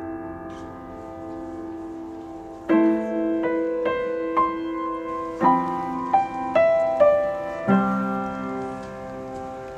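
Solo piano music. A chord dies away, then from about three seconds in a melody of single notes, about two a second, plays over fresh chords and fades near the end.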